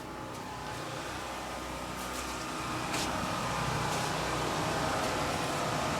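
A machine running steadily: a hum with several steady tones that slowly grows louder, with a few faint clicks.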